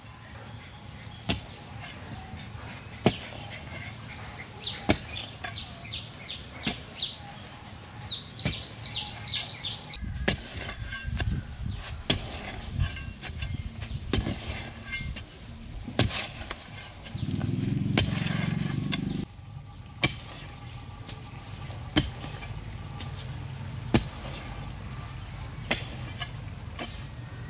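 A hoe chopping into dry, hard soil: sharp single strikes every second or two. A rapid run of high chirps comes about eight seconds in, and a low hum lasts about two seconds past the midpoint.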